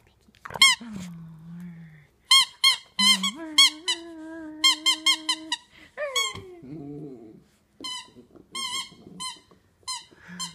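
Squeaky plush dog toys squeaked over and over in quick bursts of short, high squeaks, with a few longer, lower drawn-out squeak notes and one falling note about six seconds in.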